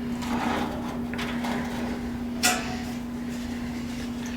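Metal engine parts being handled and set down with light clatter, and one sharp knock about halfway through, over the steady low hum of an ultrasonic parts cleaner running.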